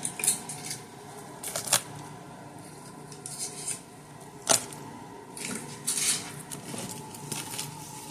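Choker necklaces being handled: rustling with light clinks and clicks, the sharpest click about four and a half seconds in.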